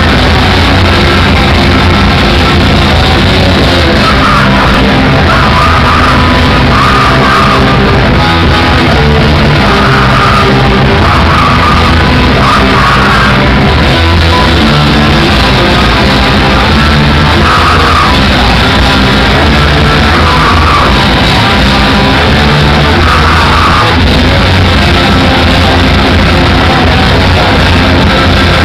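Loud live rock music from a band, with shouted vocals over it, played at an even level throughout.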